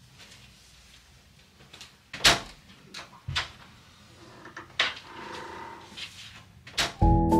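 A flat's wooden front door being opened and shut: a few sharp latch and handle clicks and knocks, the loudest about two seconds in. Music starts just before the end.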